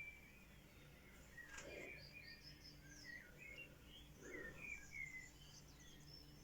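Faint birdsong: many short chirps and quick whistled notes, over a low steady hum, with two soft thuds.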